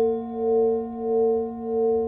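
Brass singing bowls ringing on with a low, steady hum that swells and fades about every 0.6 seconds, with the higher ring of the small hanging bowl slowly dying away.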